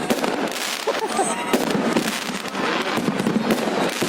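Fireworks going off in quick succession: a dense, irregular string of bangs and crackles.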